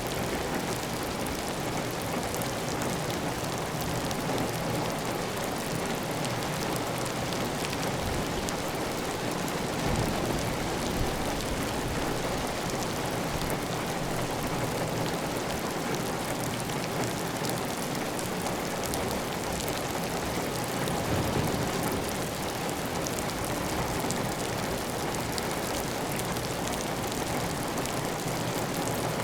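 Heavy, steady rain drumming on a clay tile roof, with water running off the roof edge. Briefly heavier twice, about ten and twenty-one seconds in.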